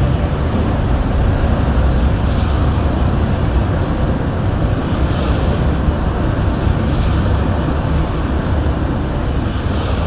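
Industrial gas flare stack burning: a loud, steady, low rumble.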